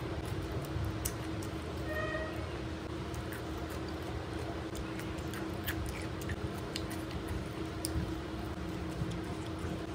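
Close-miked eating: wet mouth clicks and chewing while fingers mix and pick up rice from a banana leaf, over a steady low hum. A brief high-pitched squeak sounds about two seconds in.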